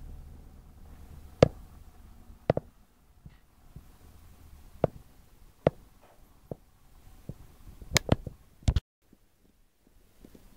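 Irregular sharp clicks and taps, about nine in all, over a faint low hum, with the sound dropping out completely for about a second near the end.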